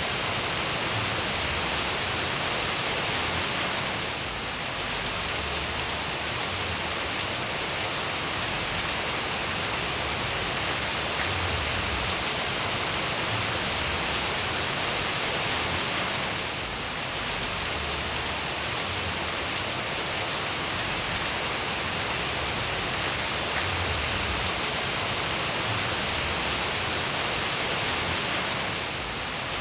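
Steady rain falling as a dense, even hiss, dipping briefly in level three times, about twelve seconds apart.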